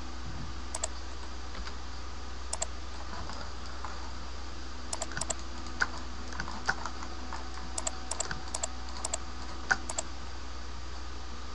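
Computer keyboard keystrokes and clicks at irregular intervals, singly and in quick clusters of two to four, over a steady low background hum.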